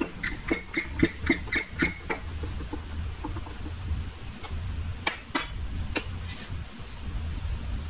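Hand pump of a hydraulic shop press squeaking with each short stroke, about four a second for the first two seconds, as a new bearing and lock ring are pressed onto a Jeep axle shaft. A few sharp metallic clicks follow about five to six seconds in as the press and shaft are handled.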